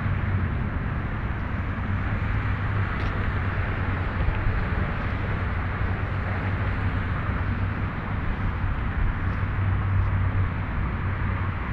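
Steady outdoor background noise, an even rushing with a constant low hum underneath.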